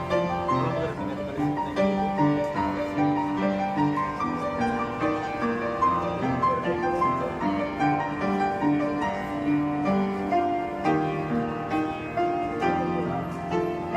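Background music led by piano, with notes changing in a steady pulse.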